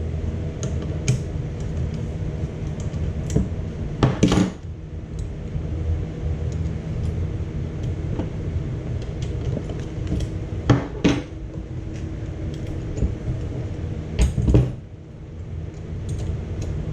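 Wrench and metal parts clinking and knocking now and then as bolts on a turbocharger housing are loosened and the housing is worked around, over a steady low hum.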